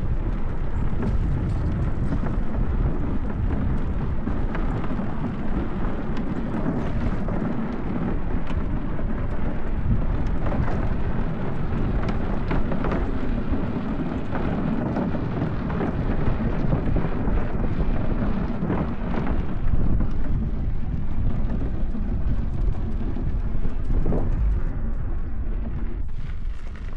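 Wind buffeting the microphone: a steady, loud low rumble with scattered crackles.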